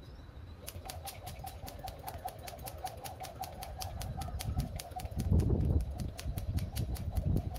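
Cable skipping rope whirring and slapping the tiled floor at a quick, even rate of about five slaps a second, over a low rumble of wind on the microphone that swells about five seconds in.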